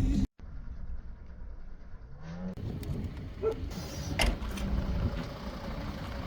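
Car in motion: a steady low rumble of engine and road noise, with a short rising engine note about two seconds in and a few light clicks and knocks around four seconds.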